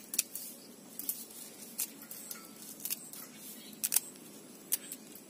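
Moringa (malunggay) leaves being stripped from their stems by hand into a stainless steel bowl: irregular sharp little snaps and ticks, about one a second.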